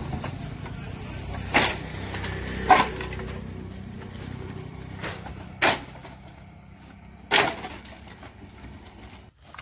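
Sawn wooden firewood offcuts being thrown off a pickup truck's bed onto a pile, landing in four loud clatters a second or more apart, over a low steady hum.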